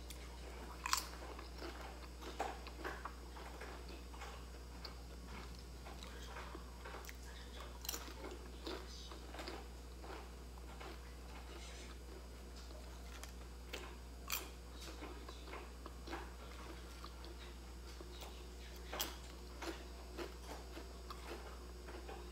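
A person biting and chewing thin crispy fried chips, a run of small crackling crunches with a few sharper, louder bites spaced through. A steady low hum runs underneath.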